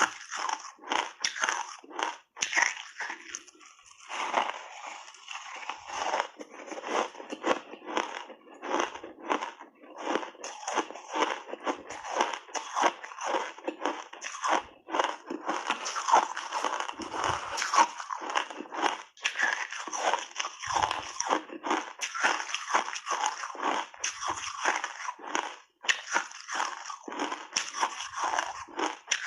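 A person biting and chewing refrozen shaved ice in big bites: dense, irregular crunching and crackling, one bite running into the next.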